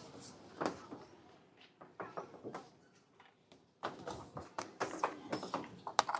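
Irregular knocks and clatter of kitchen utensils and cookware, with faint voices in the background; a short lull about three seconds in.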